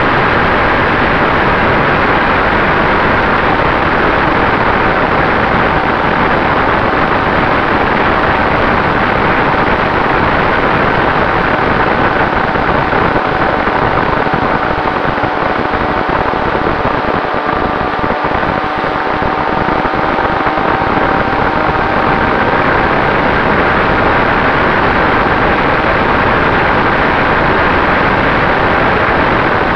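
FPV aircraft's motor and propeller heard from its onboard camera: a steady loud rush of wind and prop noise with a faint steady whine.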